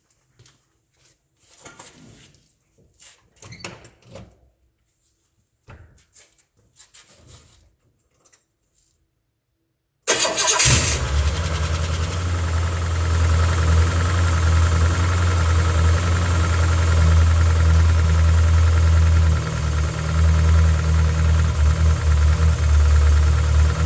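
Faint scattered knocks and rustles, then about ten seconds in a 1975 Cadillac Eldorado's V8 starts abruptly and settles into a steady, loud, low running rumble with a faint steady whine above it. This running sound is the noise the owner calls bad.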